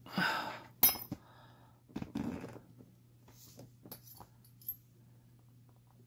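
Small metal clicks and clinks of a brass padlock plug and its pins being handled while the lock is repinned, the sharpest click a little under a second in, then lighter ticks.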